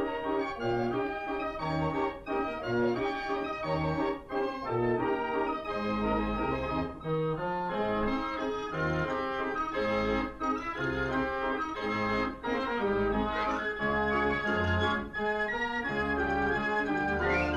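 Background music played on an organ: held chords over a bass line that moves to a new note about every second.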